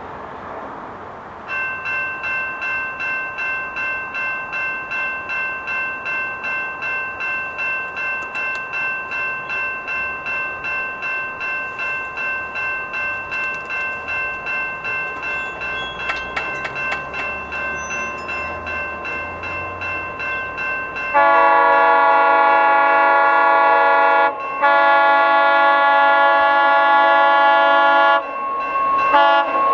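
Level-crossing warning bell ringing at about two strokes a second. About 21 seconds in, the horn of the approaching West Coast Express commuter train sounds much louder over it: two long blasts and then a short one, the start of the standard grade-crossing signal.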